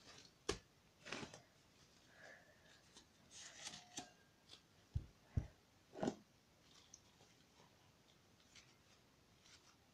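Gloved hands kneading and pressing a blob of homemade snow slime (glue slime with artificial snow mixed in): faint scattered knocks and rubbing, the three strongest close together around five to six seconds in, quieter after that.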